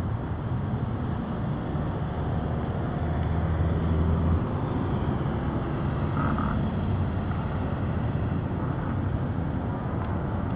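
Street traffic: a steady low rumble of passing vehicles, with one passing louder about three to four seconds in.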